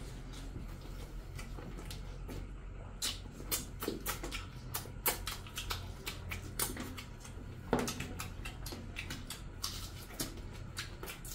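Two people eating rice and chicken curry by hand: irregular sharp, wet clicks of chewing and lip-smacking, over a steady low hum.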